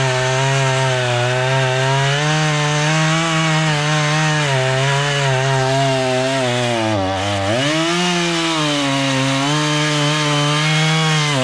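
Two-stroke chainsaw running at high revs while cutting through wood. Its pitch sags and then picks back up about seven seconds in as the chain loads in the cut. The engine winds down sharply at the end as the throttle is released.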